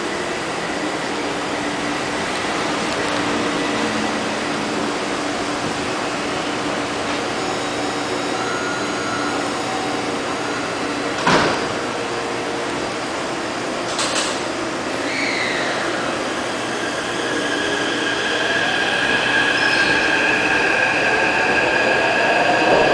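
Taipei Metro C371 train at the platform: its sliding doors shut with a sharp knock about eleven seconds in, followed by a smaller knock a few seconds later. It then pulls away, its traction motors whining louder and rising in pitch as it accelerates.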